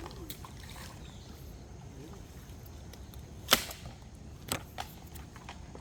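A single sharp knock about three and a half seconds in, followed a second later by two lighter clicks, over a low steady outdoor background.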